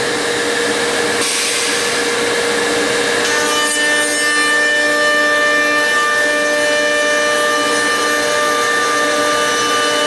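High-speed router motors of a CSR-700 automatic stair trencher running steadily while routing tread housings into a wooden stair stringer. About three and a half seconds in, several steady whining tones come in over the noise of the cut.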